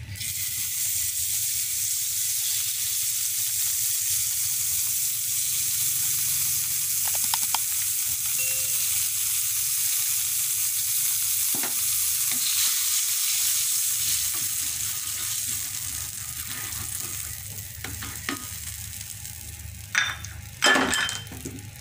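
Margarine melting and sizzling in a hot wok, a steady high hiss that eases off in the last few seconds. A few sharp knocks stand out near the end.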